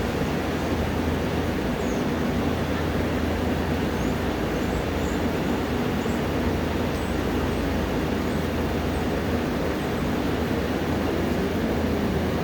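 A steady, unchanging rushing noise with a low hum underneath, and a few faint, short, high chirps scattered through it.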